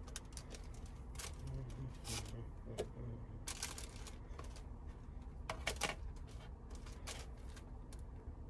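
Food being prepared by hand: scattered light clicks and taps with a few short scraping rustles, the loudest about two thirds of the way through.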